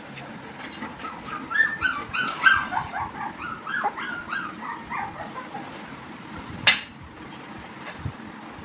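Labrador puppies whimpering and yipping: a quick series of short, high cries that fall in pitch, starting about a second and a half in and running for about four seconds. A single sharp knock comes about two-thirds of the way through.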